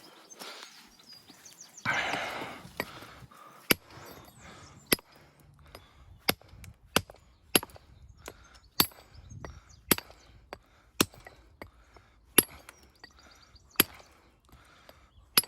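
Hammer blows on stone, about eleven sharp strikes roughly a second apart, knocking a piece off a wall stone. A short scraping of stone comes about two seconds in, before the blows start.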